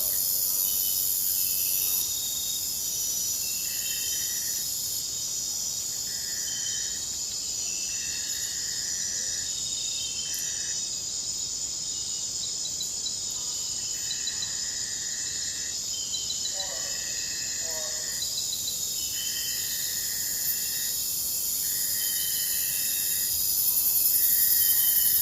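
Forest insect chorus: dense, steady high-pitched trilling, with one insect's buzzing call repeating in roughly one-second spells separated by short pauses. A few faint chirps come through about two-thirds of the way in, and the trilling grows louder near the end.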